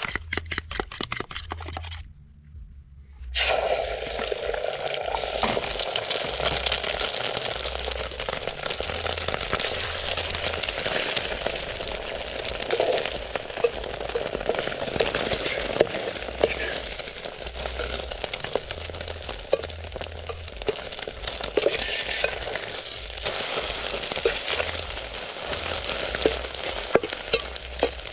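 Food frying in hot oil in a pan: a dense sizzle starts suddenly about three seconds in and carries on with crackles scattered through it. A quick run of light clicks comes before it.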